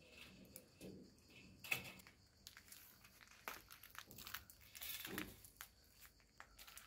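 Faint rustling and crackling of olive leaves and twigs, with a few light clicks and knocks, as a child climbs into an olive tree.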